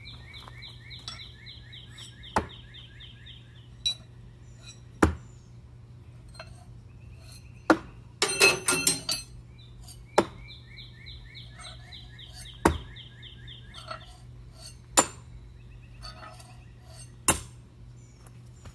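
Thrown knives striking a wooden target board with sharp thunks, about seven times, roughly every two and a half seconds, with a short burst of metal clattering near the middle. A repeated chirping trill runs in the background for a few seconds near the start and again later.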